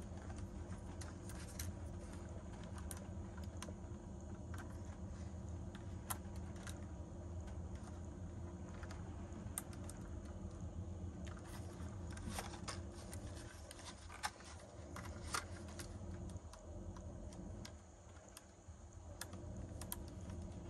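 Small scattered clicks and taps of hands handling a small DJI drone and working a precision screwdriver on its propeller screws, over a steady low hum.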